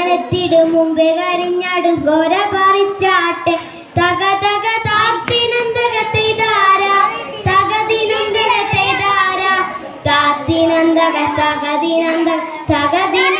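A boy singing a folk song into a handheld microphone, in held, sliding notes phrase by phrase, with short breaths between phrases.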